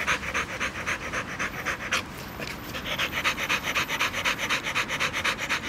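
Dog panting fast and hard, about six breaths a second, with a short pause about two seconds in before the panting resumes: she is worn out from digging.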